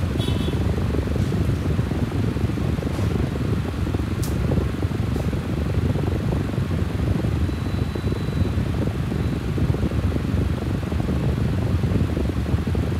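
Steady low rushing noise, like a running fan, with one faint light click about four seconds in.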